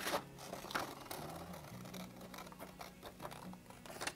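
Scissors snipping through a sheet of paper, with light paper rustling. The sharpest snips come in the first second, softer cutting after.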